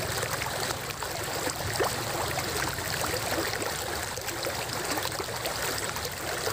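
Steady rush of flowing stream water, with a few faint short ticks.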